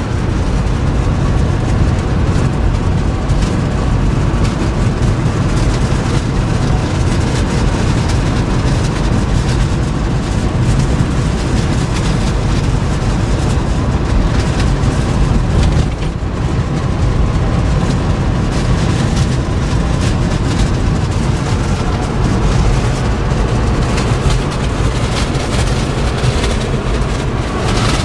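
Wind buffeting the microphone as a Cummins turbo-diesel Dodge Ram pickup drives along, a loud steady rumble with the truck's running and road noise underneath.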